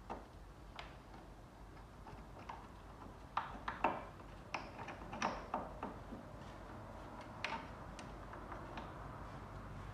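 Irregular small clicks and light knocks of hand work with small tools and parts at a car's inner wheel arch, with a quick run of sharper clicks in the middle.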